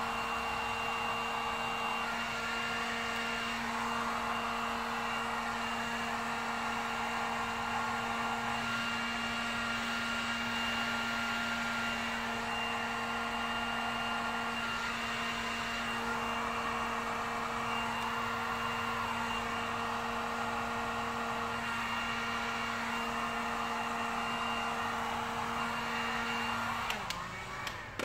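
Electric heat gun running steadily, a constant fan hum and blowing, post-heating freshly applied vinyl wrap film; it switches off near the end.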